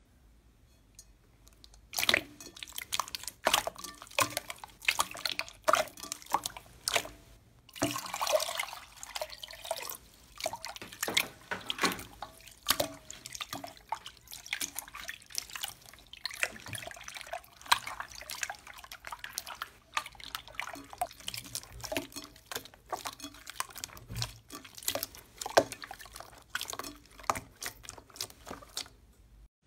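Hands squeezing and kneading sticky, glossy gold slime: a dense run of wet clicks and squelching pops that starts about two seconds in.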